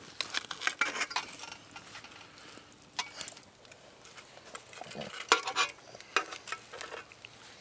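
Steel knife and fork clinking and scraping on a plate as cooked moose steak is cut and the pieces are moved, in a run of short sharp clicks. The loudest clinks come a little past five seconds in.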